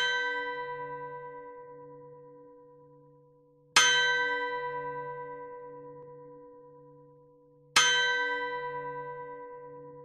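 Antique clock striking the hour on a bell. The strikes come slowly, one every four seconds, about four seconds and eight seconds in, each ringing out and fading with a low pulsing hum beneath, while the stroke from just before is still dying away at the start.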